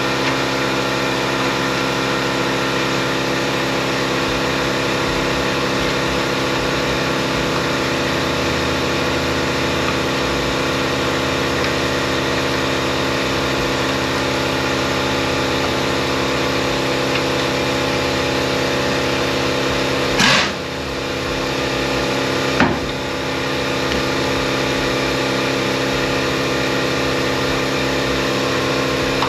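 Steady mechanical hum of a running motor, with two short sharp noises about two seconds apart roughly two-thirds of the way through.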